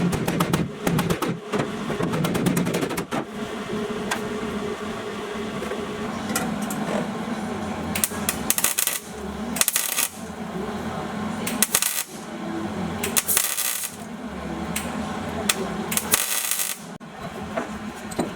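Metalworking in a shop: a quick run of metallic clicks and clinks, then five short bursts of a power tool or arc, each about half a second to a second long, over a steady background hum.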